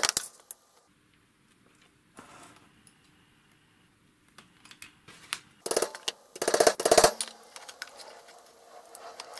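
A hammer tapping a small screwdriver against the metal housing of a Sperry Gyrosyn compass detector unit, metal on metal, to force open the sealed case. A few taps at the start, then quick rattling runs of taps in the second half, the loudest about two-thirds of the way through.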